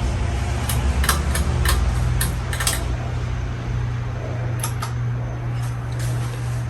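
A 52-inch Gulf Coast Tiara ceiling fan running with a steady low motor hum and air noise, with a few light clicks scattered through it.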